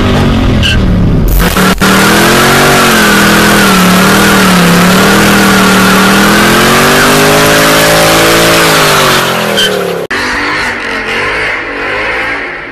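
Mercedes-AMG car doing a burnout. Its engine is held at high revs with a wavering pitch over the loud hiss of spinning, squealing tyres for about eight seconds. Near the end it changes abruptly to a quieter engine and tyre sound as a silver Mercedes E-Class pulls away.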